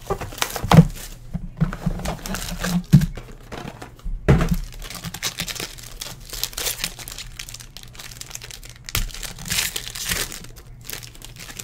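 Plastic wrapping crinkling and tearing as a pack of baseball trading cards is opened by hand, with a few knocks from the packaging being handled.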